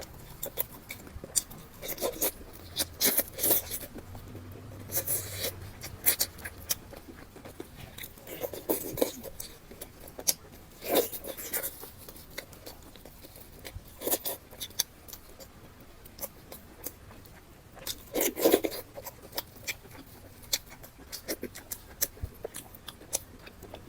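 Close-miked eating sounds: chewing, lip smacks and wet mouth clicks in an irregular stream, with louder bites or smacks every few seconds.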